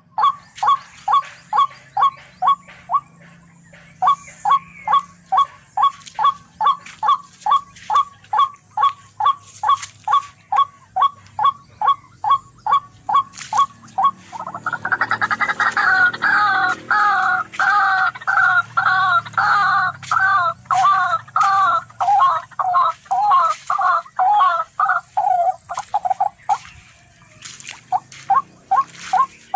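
Short animal calls repeated evenly at about three a second, with a brief pause a few seconds in. About halfway through, a louder, busier run of calls takes over for some twelve seconds, then the steady series returns near the end.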